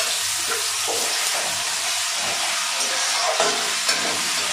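Ginger-garlic paste sizzling in hot oil in a kadhai, a steady frying hiss, with a spatula stirring and scraping against the pan now and then.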